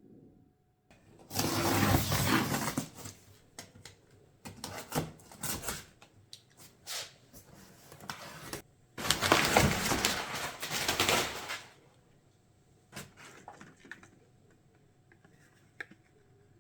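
Packaging crinkling and rustling as a purchased item is unwrapped, in two long loud stretches with scattered clicks and crackles of handling between them.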